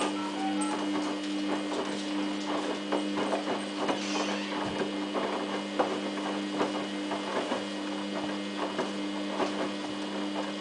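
Samsung WF8804RPA washing machine in its main wash, the drum turning slowly with a load of dog covers: a steady motor hum under irregular clicks and knocks as the load tumbles.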